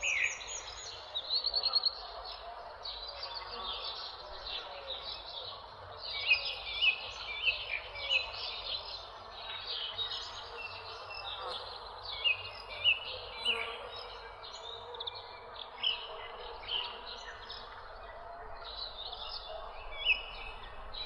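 A dense chorus of small birds chirping and trilling, with quick overlapping high calls. Now and then a louder chirp stands out above a steady background wash.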